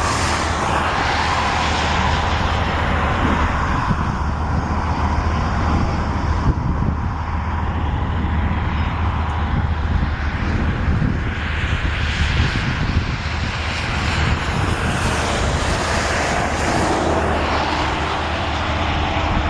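Strong wind rushing across the microphone, swelling and easing in gusts over a steady low rumble.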